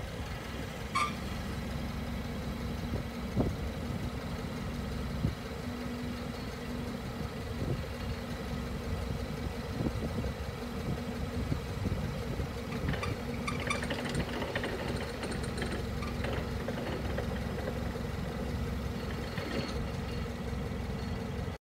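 Clark C 40 LPG-fuelled forklift's engine idling steadily, with a few short clicks and rattles.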